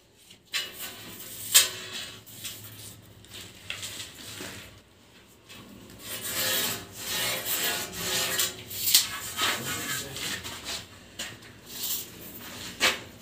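Scraping and rubbing of a marking tool drawn again and again along a metal straightedge across the face of a large 2×4 ft ceramic wall tile. Sharp knocks come about a second and a half in and near the end.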